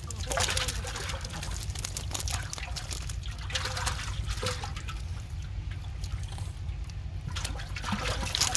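Wet cast net and fish being handled on mud: water trickling and dripping, with irregular small wet clicks and rustles over a steady low rumble.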